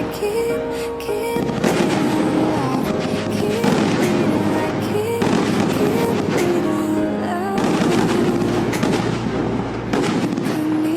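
Gold titanium willow firework cake firing shot after shot, a steady run of bangs and crackle, with background music playing over it.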